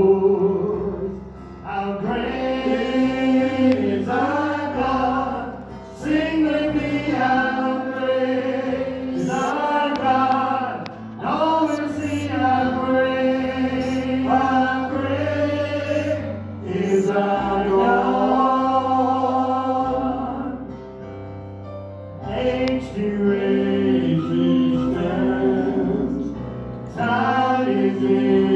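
Gospel song sung live in sung phrases of a couple of seconds, over held low keyboard notes that change every few seconds.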